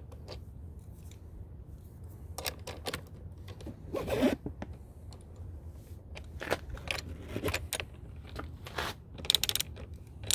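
Ratcheting wrench clicking in several short bursts as it tightens the cable nuts on a trailer battery's negative terminals.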